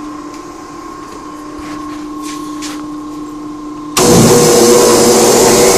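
A steady hum, then about four seconds in a Spencer P142-BD5HP turbine industrial vacuum switches on: a sudden loud rush of air with a steady whine.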